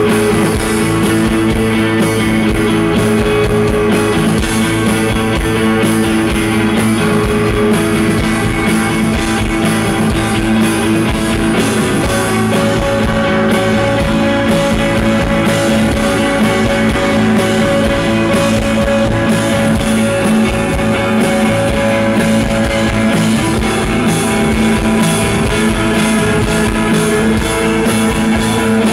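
Live rock band playing at a steady, loud level: electric guitars, bass guitar, keyboards and drum kit.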